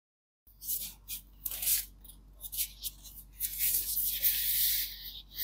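Packaging being handled by hand: crinkling and rustling in a string of short bursts, starting about half a second in, with a longer stretch of rustling past the middle.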